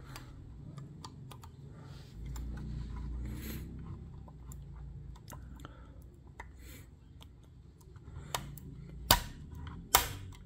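Fingers handling a scale model car: scattered small clicks and taps on its body, over a low rubbing of the handling. Near the end come two much louder sharp clicks, about a second apart.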